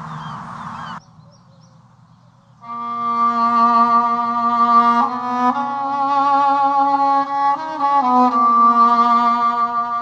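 Seagulls calling in short repeated cries that cut off sharply about a second in. After a brief lull, a slow bowed-string melody of violin and cello comes in with long held notes that step to new pitches every second or two.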